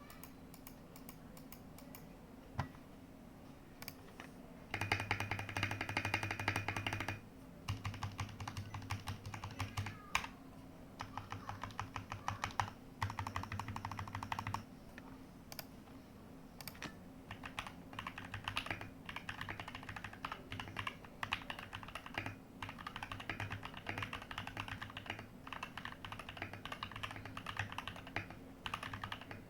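Typing on a TM680 mechanical keyboard with factory-prelubed Gateron Pro Yellow linear switches, its case damped with EVA foam and its PCB taped. A few scattered key presses at first, then fast runs of keystrokes in bursts separated by short pauses.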